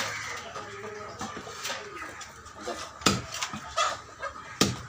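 Heavy curved fish-cutting knife chopping rohu fish on a wooden stump block: sharp knocks as the blade strikes through into the wood, at the start, about three seconds in and again near the end.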